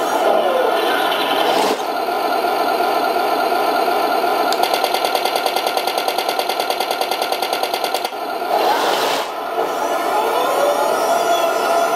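RC T-90 model tank's sound unit playing a tank engine running sound through its small speaker, with motor whir as the tank moves. A fast, even rattle of about a dozen ticks a second runs for a few seconds midway, and a short rising rush follows about eight seconds in.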